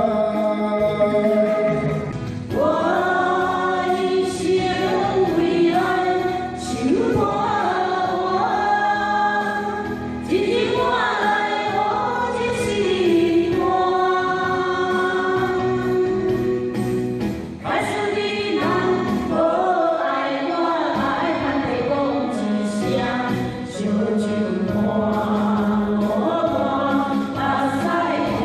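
A class of adult students singing a Taiwanese pop song together in unison over a backing track.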